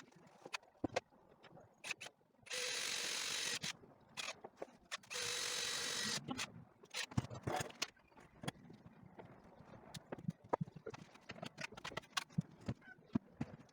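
Cordless drill-driver running twice in bursts of about a second each, driving screws to fix timber battens, with scattered knocks and clatter of wood being handled between and after.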